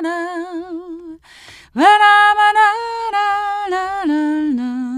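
A woman singing a wordless 'la la la' tune unaccompanied, holding notes with a wavering vibrato. There is a short breath-like break about a second in, then she swoops up into a louder held note.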